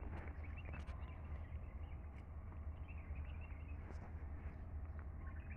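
Outdoor ambience: a steady low rumble with faint bird chirps here and there.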